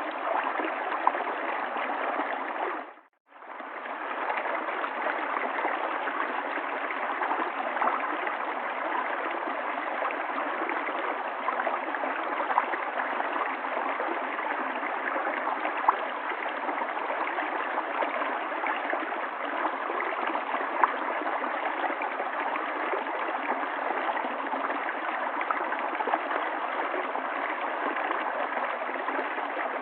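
River water running steadily. About three seconds in it fades briefly to silence and then fades back up.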